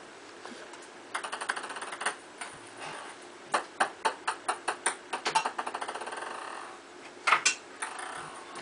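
Ping pong ball bouncing on a hard surface. A quick run of clicks comes about a second in. Then the bounces come faster and closer together until they blur into a short rattle, with a couple of sharper taps near the end.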